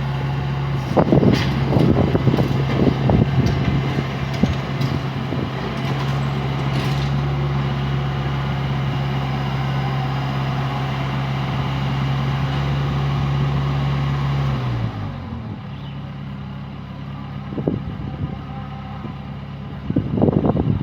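Small excavator's diesel engine running steadily at high revs, with knocks and clatter of demolition debris in the first few seconds. About fifteen seconds in, the engine drops to a lower idle, and more knocks come near the end.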